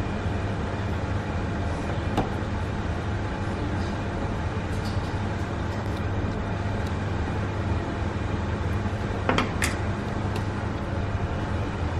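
Steady low hum of kitchen machinery, with a few light clicks: a faint one about two seconds in and two sharper ones close together about nine seconds in.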